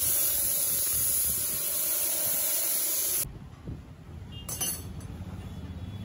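A loud, steady hiss that cuts off abruptly about three seconds in.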